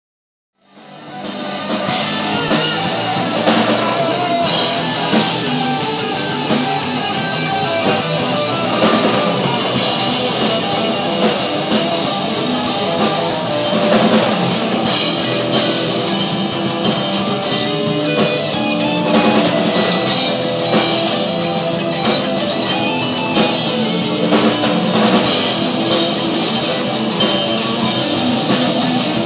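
Rock band playing live with electric guitars and a drum kit, the music coming in suddenly about a second in and then playing on at a steady loudness with frequent cymbal hits.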